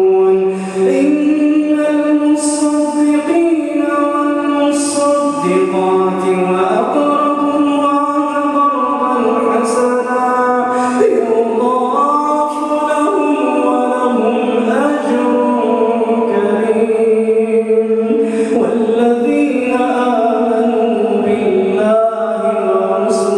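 A man reciting the Quran aloud in melodic tajweed style, holding long notes that glide slowly up and down, amplified through a microphone.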